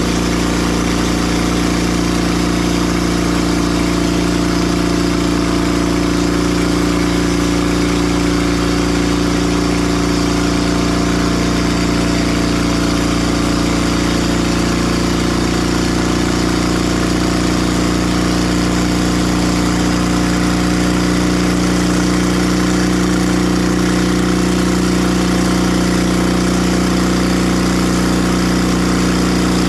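Timber Harvester bandsaw mill running at a steady speed: a steady engine drone with an even hiss above it.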